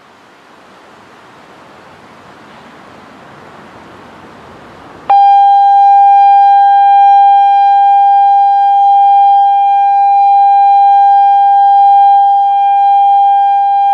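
Genasys LRAD DS-60XL speaker arrays sounding the steady alert tone of an outdoor warning system test. The tone starts abruptly about five seconds in, one loud unwavering pitch held without a rise or fall, after a soft hiss that slowly grows louder.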